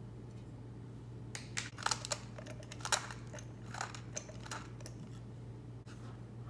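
Short crunchy grinding clicks in several quick bursts as black pepper is added over oil and egg in a plastic blender beaker.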